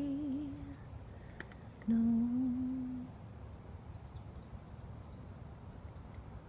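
A woman singing unaccompanied: a held note that fades out, then a single sung "No" held for about a second. After that only a low steady background rumble remains, with a few faint high chirps.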